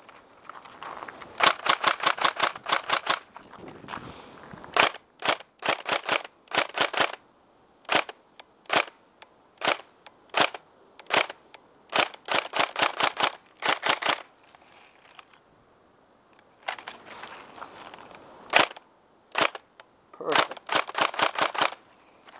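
Tokyo Marui Next Gen G36K electric airsoft rifle firing: short full-auto bursts alternating with strings of single shots spaced under a second apart.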